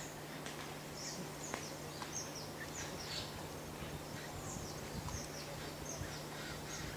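Wild birds chirping: many short, high notes that slide downward, repeated in quick irregular succession over a faint steady low hum.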